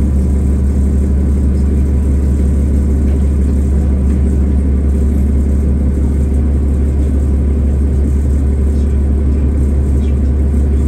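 Cummins ISL diesel engine of a 2005 New Flyer D40LF transit bus running, heard from inside the passenger cabin as a steady low drone that neither rises nor falls.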